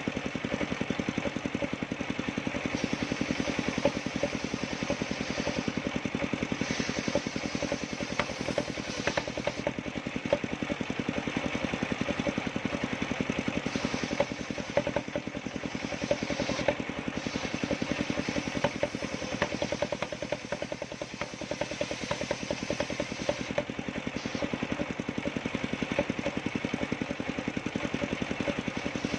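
Engine of a homemade circular-saw sawmill running steadily with a rapid, even firing beat. A higher-pitched layer comes and goes every few seconds.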